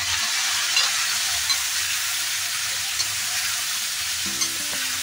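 Spice masala sizzling in hot oil in a kadai of fried potato and cauliflower, being roasted (bhuna) while a spatula stirs, with a few light clicks of the spatula against the pan.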